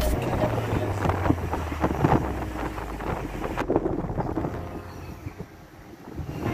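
Car driving, with road rumble and wind buffeting the microphone through the open window. The sound thins out abruptly a little past halfway and grows quieter near the end.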